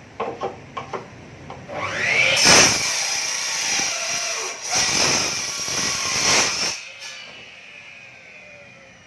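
A few handling clicks, then a mini miter saw's motor whines up to speed and its blade cuts through a piece of wood, before the motor winds down with a falling whine.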